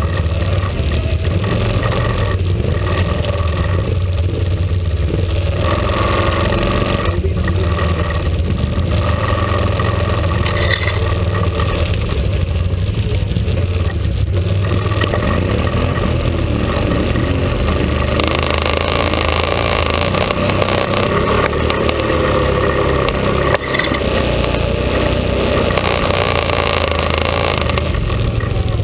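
ATV engines running steadily as the machines ride along a rough forest trail. The engine note brightens and works harder about two-thirds of the way through.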